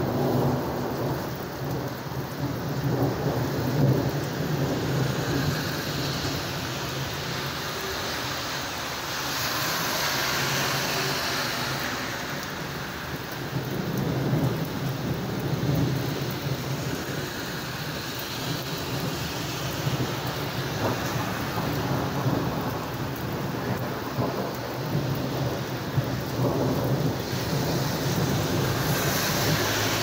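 Heavy rain pouring steadily with rumbles of thunder rising and fading several times. The rain hiss swells louder about ten seconds in and again near the end.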